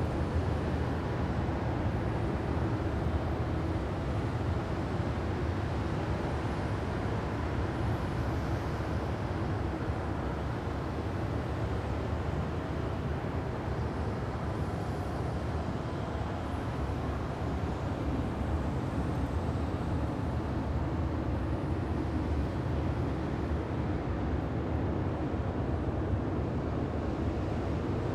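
Designed sci-fi alien-planet wind ambience: a steady low, rumbling wind-like noise with faint sustained drones in it, and a few faint high sweeps drifting over it.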